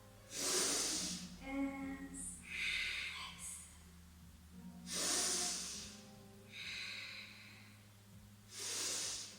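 A woman breathing loudly and slowly: three long exhales, each a rush of breath about every four seconds, with softer in-breaths between them, paced to a yoga movement.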